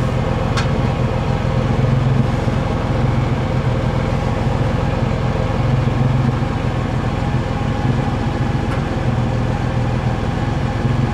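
1992 Ford Explorer's 4.0-litre V6 idling steadily, heard close to the exhaust tailpipe.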